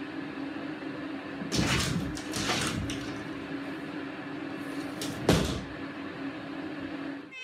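Cat knocking a suspended-ceiling tile up out of its grid and scrambling through: a burst of rattling and scraping about a second and a half in, then a single sharp clack about five seconds in as the tile drops back into place. A steady low hum runs underneath.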